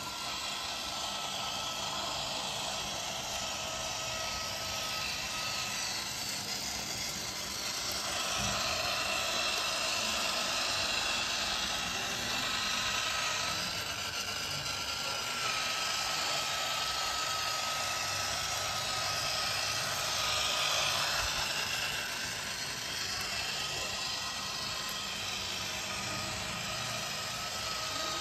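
Small electric motor and gears of a toy Tokyo Monorail 10000 series train running along its plastic monorail track: a steady high whine, louder for a stretch in the middle.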